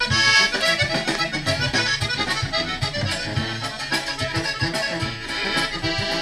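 Accordion-led corrido music that cuts in suddenly at the start and plays on steadily.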